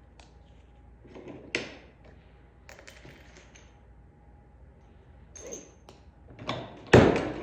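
Small parts of a Tecre Model 100 button maker clicking as button shells and flatbacks are set in its dies, then near the end a loud metal clunk as the press handle is pulled down to crimp. The machine's crimp die is loose and set too high, so it over-crimps and smooshes the flatbacks.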